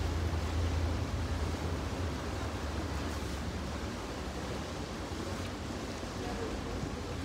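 Canal water sloshing against the stone embankment, with a low motorboat engine rumble that eases after the first second or two as the boat moves away.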